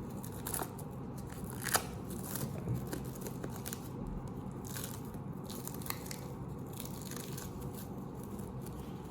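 Layers of packing wrap being torn and pulled open by hand, with irregular crinkles and sharp crackles, the loudest a little under two seconds in.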